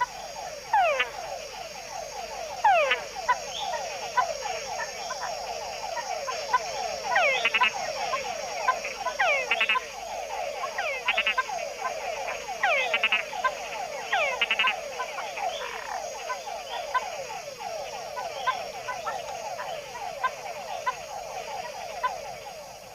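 A chorus of male mud-puddle (túngara) frogs calling for females: many overlapping whines that fall in pitch, with short chuck notes added, over a steady high hiss.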